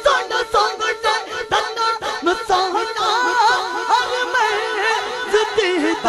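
A man singing a Punjabi naat into a microphone, his voice sliding through ornamented melodic turns, with echo added on the sound system.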